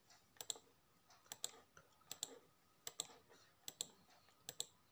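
Faint, evenly spaced clicks in pairs, about six pairs, from a mobile number being typed on a smartphone's on-screen keyboard.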